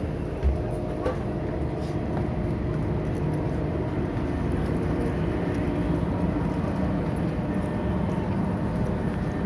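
Steady rumble and hum of a train at a station platform, with a short knock about half a second in.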